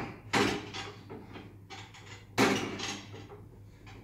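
Two sharp knocks of kitchen things being handled, about two seconds apart, each trailing off in a brief clatter.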